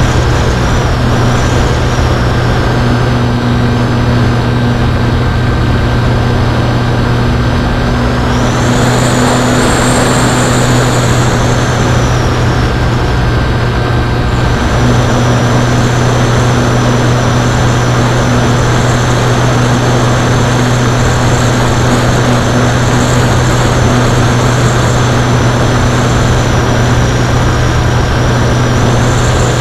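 Electric motor and pusher propeller of a Zeta Science FX-79 flying-wing RC plane, heard through its onboard camera: a steady drone and high whine over wind rush. The whine rises about eight seconds in and drops back about six seconds later.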